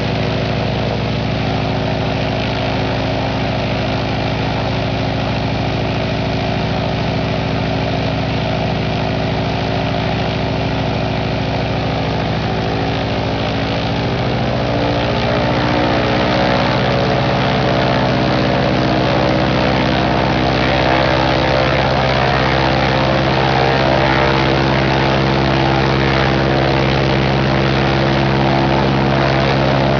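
Jacobs R-755 seven-cylinder air-cooled radial aircraft engine running on a run stand with its propeller turning. About halfway through the engine speeds up, its pitch rising and getting a little louder, then it holds steady at the higher speed.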